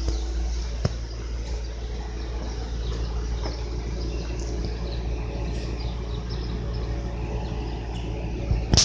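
Outdoor background noise with a steady low rumble, a small click about a second in, and a sharp knock near the end.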